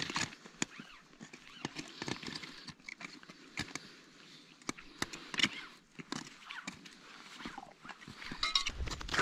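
Irregular crunching footsteps on frozen snow with the rustle of a climbing rope and gear being handled, and a low rumble coming in near the end.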